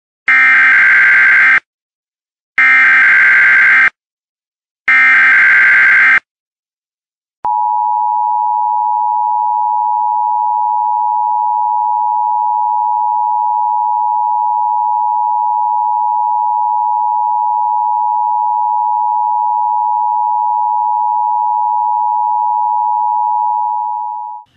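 Emergency Alert System broadcast tones: three harsh bursts of data tones, each about a second and a half long with short gaps between them, then after a brief pause the steady two-tone attention signal, held for about seventeen seconds.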